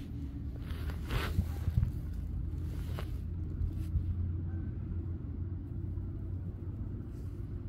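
Steady low outdoor rumble, with brief rustling noises between about one and two seconds in and a faint click about three seconds in.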